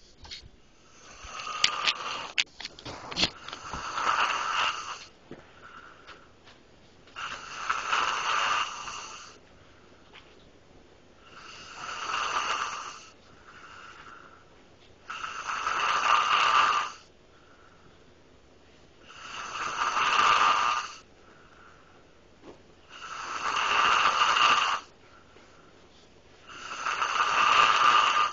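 A person snoring loudly in a steady rhythm, one long snore about every four seconds, with faint breaths between. A few sharp clicks come about two to three seconds in.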